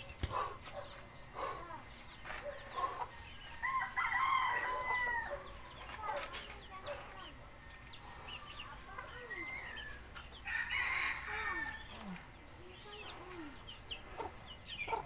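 Chickens clucking, with a rooster crowing about four seconds in. A dull thump right at the start as the homemade barbell is set down on the dirt.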